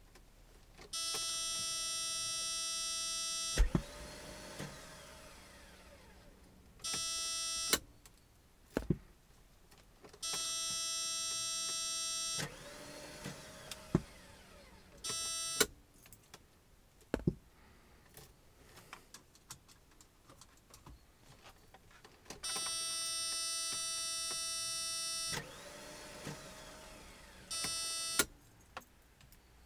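A car's dashboard warning tone sounds steadily for a couple of seconds, then a click, then an electric motor whines up in pitch and levels off, followed by a brief repeat of the tone and a few clicks. The whole sequence repeats three times: repeated tries to start a car that won't start.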